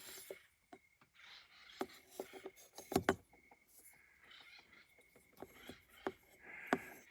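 Scattered light clicks and taps of handling, with two louder knocks about three seconds in and near the end.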